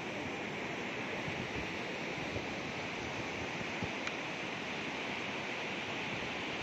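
Steady wash of ocean surf breaking on a beach.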